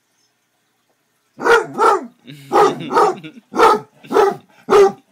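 Basset hound barking, about seven short barks at roughly two a second, starting about a second and a half in.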